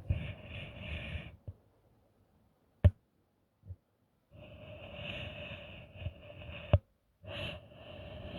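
SMC KN56 ceiling fan running: a whir of moving air with a steady motor hum, in stretches that cut out abruptly to silence. Two sharp clicks, about three seconds in and near seven seconds.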